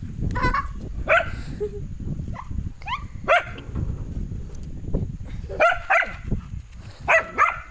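Young black dog barking repeatedly in short, high-pitched barks and yelps, the loudest near the end.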